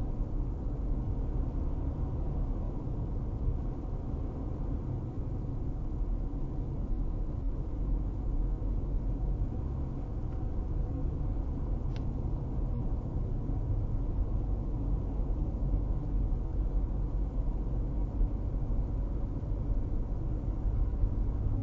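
Car driving at about 50 mph, heard inside the cabin: a steady low rumble of road and engine noise.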